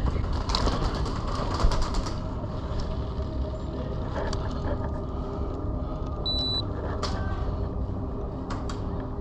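Steady low rumble of wind and movement on a body-worn camera, with a quick run of sharp clicks from about half a second to two seconds in and a few single clicks later.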